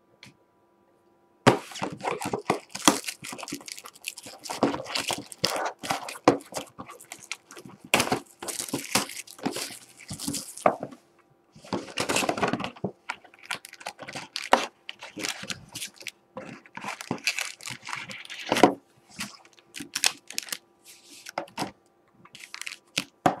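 Irregular crackling and tearing of plastic wrap and foil card packs as a Panini Prizm trading-card box is unwrapped and opened. The packs are pulled out and handled in short bursts with brief pauses, starting about a second and a half in.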